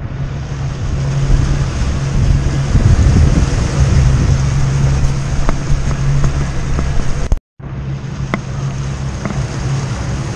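300-horsepower outboard motor running at speed with a steady low hum, mixed with wind buffeting the microphone and the rush of the churning wake. The sound drops out for a moment about seven and a half seconds in.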